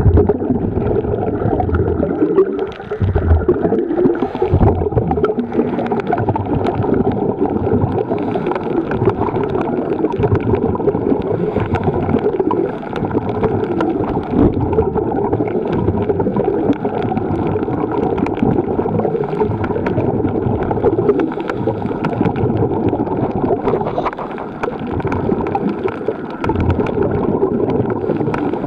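Muffled bubbling and rushing water noise recorded underwater, steady throughout with small crackles and a few brief dips.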